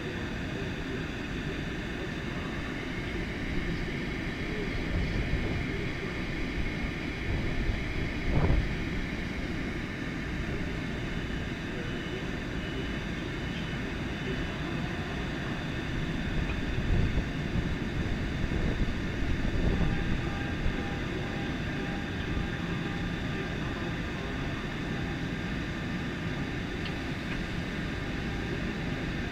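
LIRR M7 electric train standing at the platform, its onboard equipment giving a steady hum and hiss with a heavy low rumble. A single sharp thump comes about eight seconds in.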